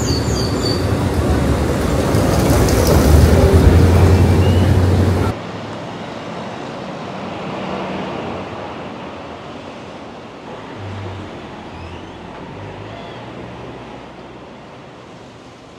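Loud street and traffic noise with a low engine rumble that swells over the first few seconds, then cuts off abruptly to a quieter, steady background noise.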